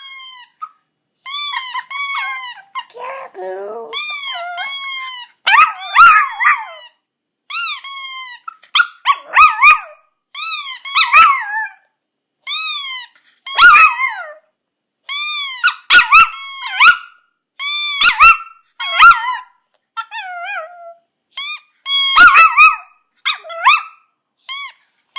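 A rubber squeaky toy squeezed over and over, often two squeaks close together, with a small chihuahua howling along to it in wavering cries between the squeaks.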